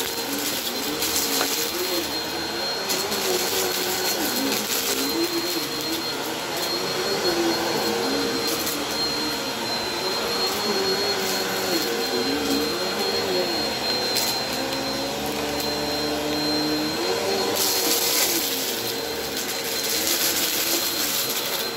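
Upright bagless vacuum cleaner running over a thick shag rug, with a steady high whine. Its motor hum wavers up and down as the vacuum is pushed back and forth. Now and then, swells of crunchy hiss come as grit and debris are sucked up, most strongly near the end.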